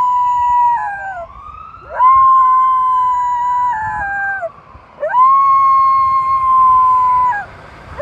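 A miniature Schnauzer howling along with a wailing ambulance siren. There are long held notes of about two and a half seconds, each dropping away at the end, coming in about two seconds and five seconds in, over fainter rising and falling siren sweeps.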